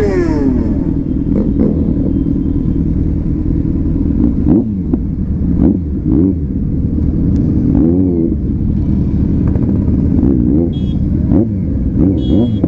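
Sport motorcycle engine heard from the rider's seat, its pitch falling as it slows to a stop in traffic. It then runs low with a few short throttle blips that rise and fall in pitch.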